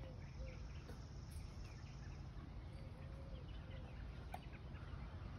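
Chickens clucking faintly: a handful of short, low hen calls, a couple of them drawn out, spread through a quiet outdoor background.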